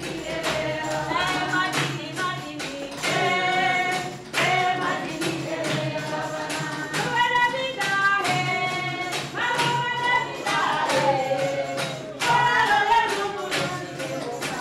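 Closing music: voices singing over a steady percussion beat.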